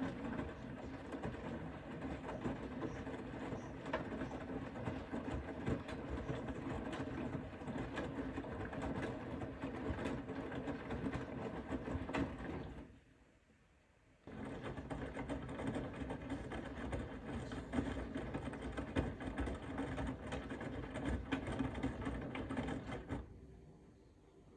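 Bosch Serie 4 WAK20260TR front-loading washing machine tumbling its wash at low speed: the motor hums as the drum turns for about twelve seconds with the load and water sloshing and knocking inside, stops briefly, then turns again for about nine seconds and stops near the end.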